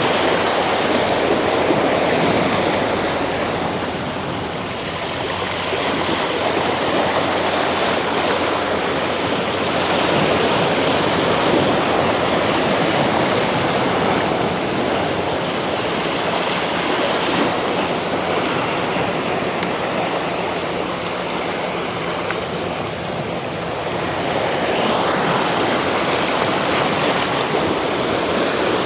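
Ocean surf washing and churning over shoreline rocks, a steady rush that swells and eases every several seconds.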